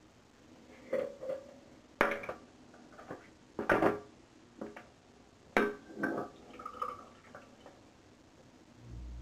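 Hard objects, most likely the plastic shaving cream tub and its lid, being handled and set down on a hard surface: a run of irregular knocks and clinks, the loudest about two seconds in, around four seconds and at five and a half seconds.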